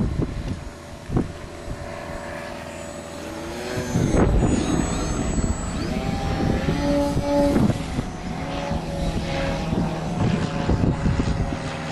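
Electric motor and propeller of a small foamboard RC plane buzzing in flight, its pitch rising and falling as it passes. Low rumbles of wind on the microphone come near the start and about four seconds in.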